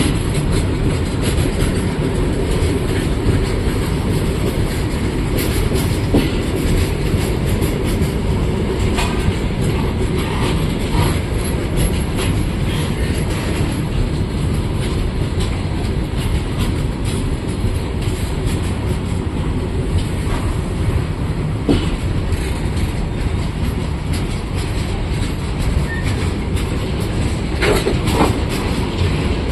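Train running on the track: a loud, steady rumble and clatter of wheels on rails, with a brief faint squeal of metal near the end.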